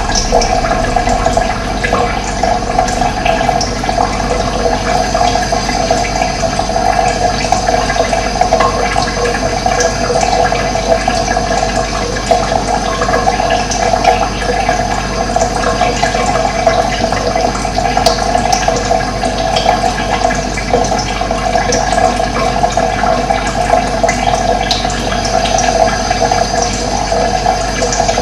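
Running water, a steady unbroken rush.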